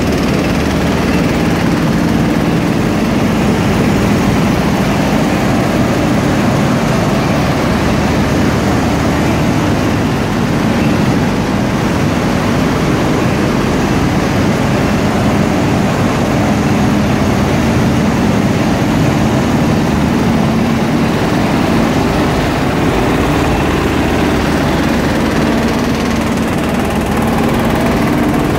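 Wheat flour mill machinery running: a steady, loud mechanical din with a low hum underneath, unchanging throughout.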